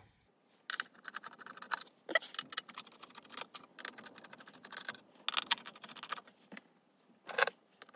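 Plastic clicking and scraping as the LED PARcan's moulded lens array is worked loose and lifted off the LED board. The sound comes as irregular runs of small clicks with a few sharper snaps.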